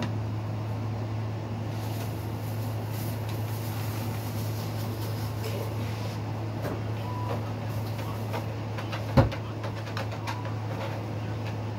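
A steady low hum, with a few faint scattered clicks and one sharp knock about nine seconds in.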